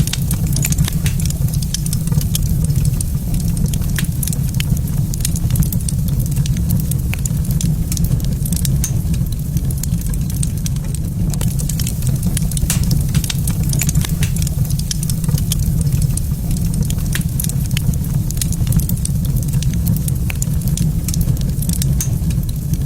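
Wood fire crackling in a fireplace, with frequent sharp pops over a steady low rumble.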